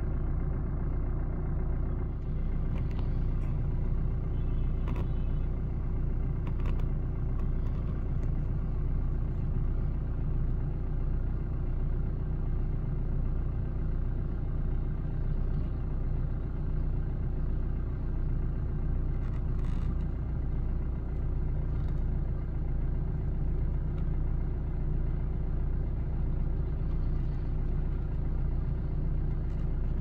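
Steady low rumble of street traffic and engines, with a few faint, short high-pitched sounds over it.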